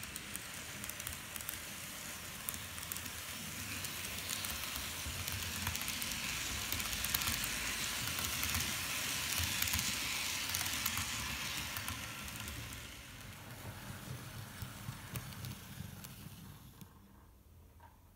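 N gauge model train, a Fleischmann E03 electric locomotive hauling Arnold Rheingold coaches, running on curved track: a steady rattle of small metal wheels on the rails with light clicking, growing louder as it approaches, loudest about seven to eleven seconds in, then fading away.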